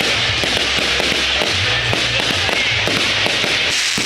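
Fireworks crackling and popping in quick succession over music with a low bass line.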